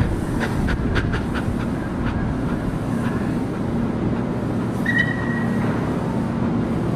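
Steam locomotive moving slowly, with a steady hiss of escaping steam and a rumble. A quick run of sharp clicks and clanks comes in the first second and a half, and a brief high squeal about five seconds in.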